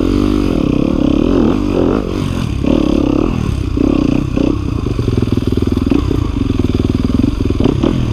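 Yamaha WR250F dirt bike's four-stroke single-cylinder engine revving up and down as it picks its way over a rocky trail, with a few knocks from the bike over the rocks.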